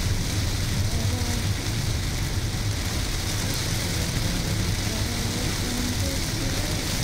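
Heavy rain pelting a car's windshield and roof, heard inside the cabin over the steady low rumble of the car driving on a wet road.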